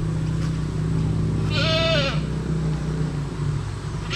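A farm animal bleating: one short, arching bleat about a second and a half in, and another starting right at the end, over a steady low hum.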